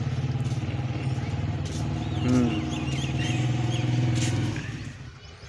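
Motorcycle engine running steadily, then fading out about four and a half seconds in. Faint bird chirps come through over it midway.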